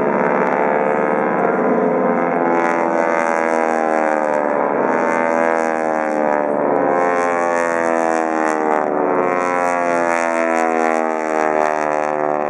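Several North American T-6 Texan radial engines and propellers droning together overhead, their pitch slowly rising and falling as the formation loops.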